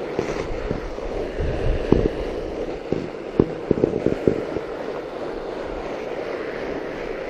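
A fat bike with 4.5-inch tires rolling over snow, giving a steady rushing noise of tires and wind on the microphone. Several sharp knocks come between about two and four and a half seconds in.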